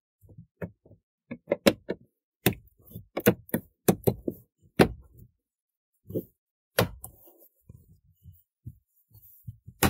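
Ford Bronco's plastic dash speaker grille being pressed and tapped back into its clips by hand: an irregular series of sharp knocks and clicks.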